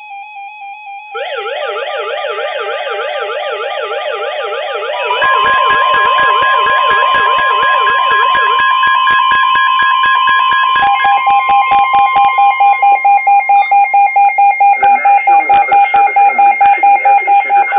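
Weather alert radios sounding their warning alarms together: a warbling tone sweeping rapidly up and down starts about a second in, other steady tones join, and a fast repeating beep takes over near the end. These are the alarm alerts that flag a broadcast severe weather warning.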